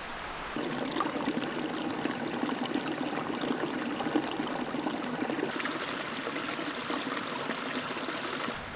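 Small forest stream trickling and babbling over rocks, coming in about half a second in after a steady hiss.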